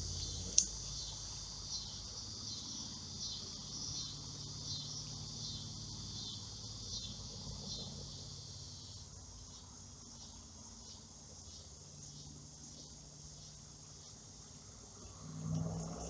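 Evening chorus of insects, crickets among them, chirping steadily in a high, finely pulsing band that fades a little toward the end.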